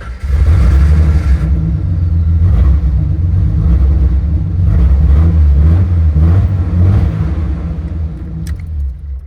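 A 1988 Jeep XJ's engine runs at idle just after starting, then cuts off just before the end. The owner calls the idle rough, less smooth than it used to be, and doesn't yet know the cause.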